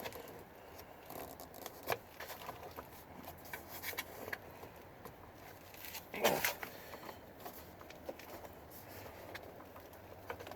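Hands working plastic car door trim and mirror parts back into place: scattered light clicks and scrapes, with one louder scrape about six seconds in.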